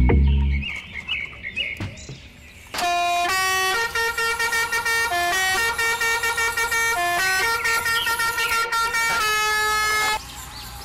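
A loud low rumble cuts off about half a second in. Faint chirps follow, then a horn-like electronic tune of buzzy notes stepping up and down plays for about seven seconds and stops abruptly.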